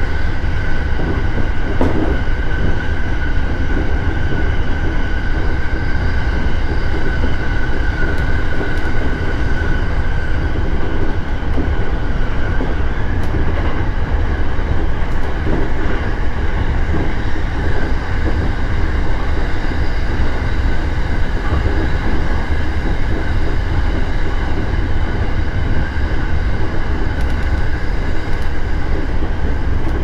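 Electric commuter train running steadily at speed, heard from the driver's cab: a constant rumble of wheels on rail with a steady whine over it.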